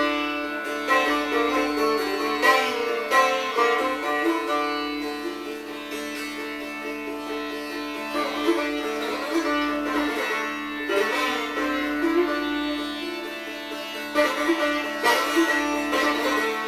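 A plucked string instrument being practised solo: a line of plucked notes, some bent in pitch, over a steady ringing drone, with sharper strokes near the start and again near the end.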